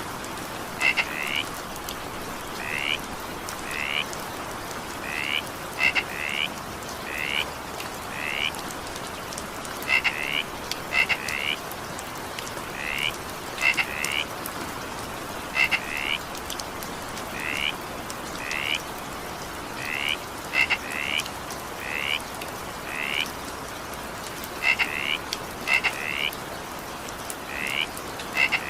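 Frogs calling in short croaks, often in quick pairs and about one a second, over steady rain.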